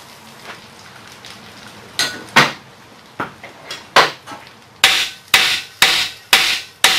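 Hand hammer striking the steel bearing and puller assembly on a jackshaft: about ten sharp metal blows, a few scattered at first, then an even run of about two a second near the end. The blows are meant to shock a torch-heated, seized bearing race loose while the puller holds it under tension.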